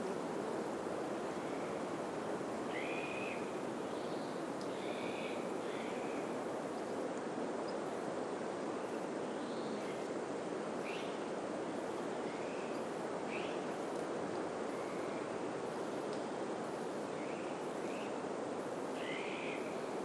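Steady rushing of wind through pine trees, with short bird chirps and calls scattered throughout.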